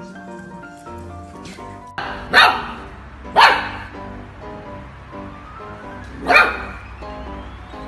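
A small puppy barks sharply three times, about two and a half, three and a half and six and a half seconds in, over steady background music.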